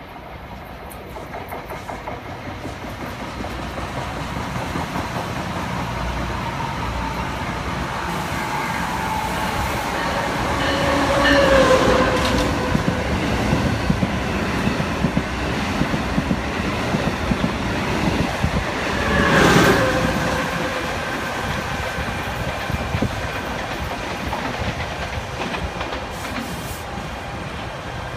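Electric passenger trains passing close by at speed: a steadily building rush of wheels on rail with clickety-clack. It peaks twice, about twelve and twenty seconds in, with a falling whine at the first peak as a train goes by.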